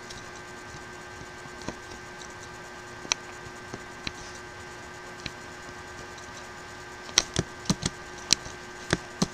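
Scattered sharp clicks of a computer mouse and keyboard keys, a few spaced apart and then a quick cluster of about seven near the end. They sound over a steady faint electrical hum.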